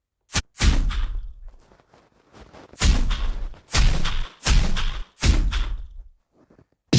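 Punch sound effects played back from a video editor's sound library: a short click, then five heavy thudding hits, each with a short fading tail. The last four come in quick succession.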